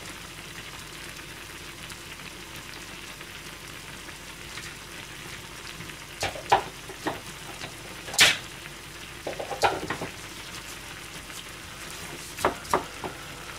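A saucepan of meat and vegetables in broth simmering on a gas stove, a steady bubbling sizzle. A few sharp knocks or clicks come in the second half, the loudest about eight seconds in.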